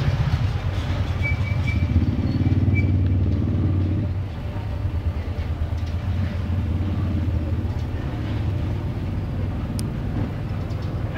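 A motor vehicle's engine running with a steady low rumble, a little louder until about four seconds in, then easing.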